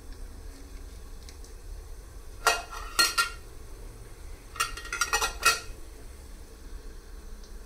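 Stainless steel lid clinking against a small steel container as it is lifted off and then set back on: two short clusters of metallic clinks with a brief ring, the first about two and a half seconds in and the second about two seconds later.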